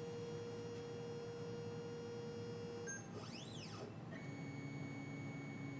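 Faint steady humming tones, with a whine that rises and falls in pitch about three seconds in.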